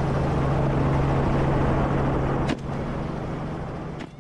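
Helicopter rotor and engine noise heard through an open cabin door in low flight: a loud steady rush with a low hum, broken by a short sharp crack about two and a half seconds in and again near the end.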